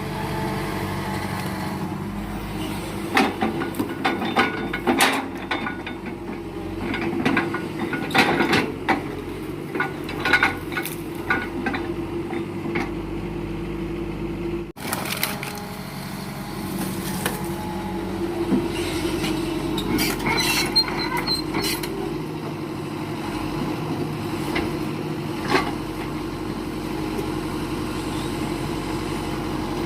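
Diesel engine of an excavator running steadily while it handles rubberwood logs, with repeated knocks and cracks of wood. The knocks are thick in the first half and sparse after a sudden break about halfway.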